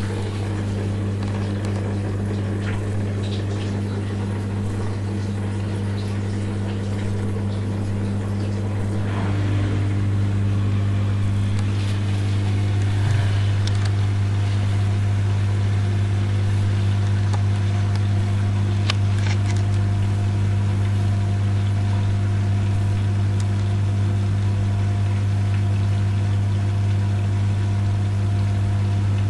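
Rex Input RL12X washing machine's drain pump running with a steady hum, emptying the water of the final rinse. The hum gets a little louder about nine seconds in.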